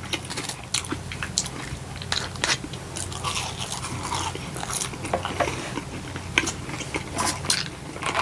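Close-up eating sounds: crunchy bites and chewing of fast food, heard as irregular crackly crunches.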